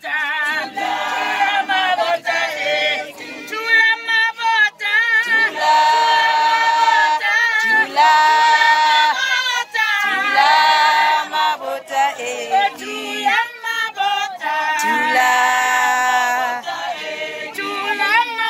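A group of voices singing without instruments, women's voices to the fore, with long held notes and wavering high notes between them.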